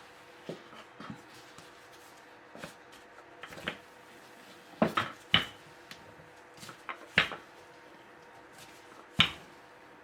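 Scattered short knocks and taps, about a dozen over ten seconds, the loudest about halfway through and near the end: chilled, hardened pastry dough and a rolling pin being handled on a kitchen work surface.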